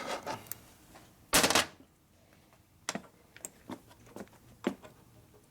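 A short clatter about a second and a half in, then a handful of light, sharp clicks spread over the next few seconds, as the rebuilt motorcycle transmission is shifted by hand on the bench.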